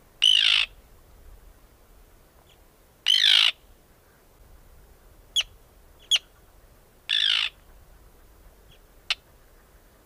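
Arctic tern calling: three loud calls of about half a second each, spaced some three to four seconds apart, with three short sharp single notes between and after them.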